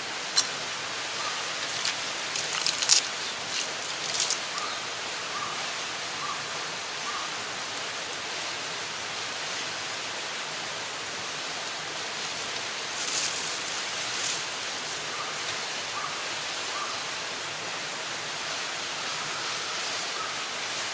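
Steady outdoor background hiss with a few light metal clinks from a stainless cup and bowl being handled and a spoon stirring in a stainless mug, most of them in the first few seconds and a couple more past the middle.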